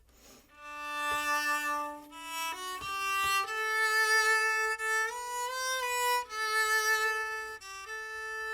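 Yamaha SVC-210 silent cello bowed and heard unamplified, giving its bare, quiet acoustic sound. It plays a slow melody of sustained upper-register notes, with a pitch change about once a second and a short upward slide midway.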